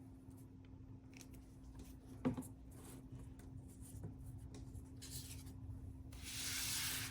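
Paper being handled and rubbed while pieces of a cardstock folio are glued together: a sharp tap about two seconds in, a brief rub near five seconds, then a louder rub lasting about a second near the end.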